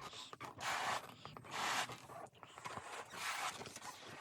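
Someone blowing up a rubber balloon by mouth: a series of short, hard breaths into the balloon, roughly one a second.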